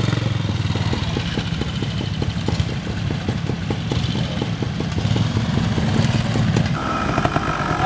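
Trial motorcycle engine idling with a slow, even beat of about five pulses a second, which stops shortly before the end.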